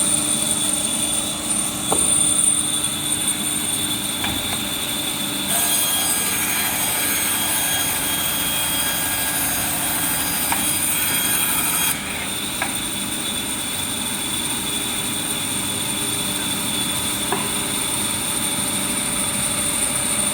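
Automatic wood band saw running steadily with a steady high whine. From about five to twelve seconds in a harsher, denser sound rises over it as the blade cuts through a wood strip, then drops back to the running hum.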